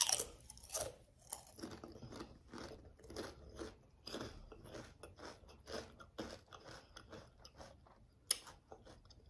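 A mouthful of salt and vinegar potato chips being crunched and chewed, in irregular crackling crunches, the loudest right at the start.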